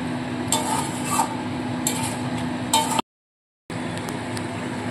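Metal spatula stirring and scraping mutton pieces around a metal kadai, four scrapes spaced under a second apart, over a steady hiss and low hum; the sound drops out for a moment about three seconds in.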